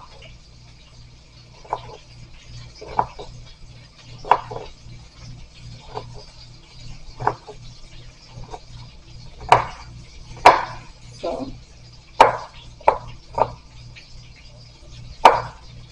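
Kitchen knife chopping vegetables on a plastic cutting board: irregular, separate knocks of the blade striking the board, roughly one a second, with the loudest strikes in the second half.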